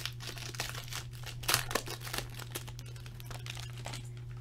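Foil wrapper of a hockey card pack crinkling as it is pulled open and peeled off the cards. The crinkling is loudest about a second and a half in and dies down near the end.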